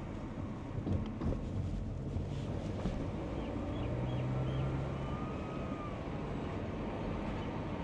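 Car being driven: a steady low engine and road rumble, with a couple of light knocks about a second in.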